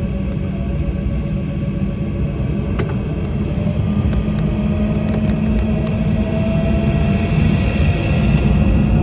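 Embraer E190's GE CF34 turbofans heard from inside the cabin during the takeoff roll: a heavy rumble growing steadily louder, with a faint whine rising slowly in pitch in the second half. A few light rattling clicks sound over it.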